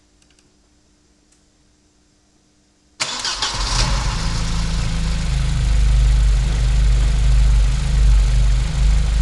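Hartge-tuned BMW E30 M3 engine starting: after about three quiet seconds with a few faint clicks, it fires suddenly and settles into a steady idle. This is its first start after a full restoration and a year without running.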